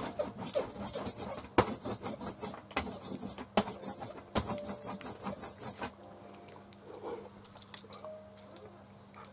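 An ink roller (brayer) rolled back and forth, charging it with printing ink for an end-grain woodblock, giving a rubbing hiss with each stroke. The strokes stop about six seconds in, leaving only faint ticks and handling.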